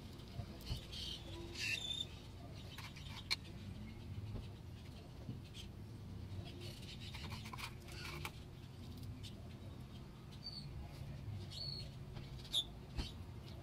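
A small brush dabbing wet fiberglass resin into glass strands on a plastic side skirt: faint, scattered soft taps and short sticky squeaks, over a low steady background hum.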